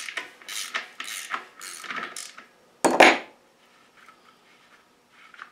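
A wrench working the brass drain fitting out of the bottom of a steel air compressor tank: a series of short metallic scraping strokes, then one loud clunk about three seconds in.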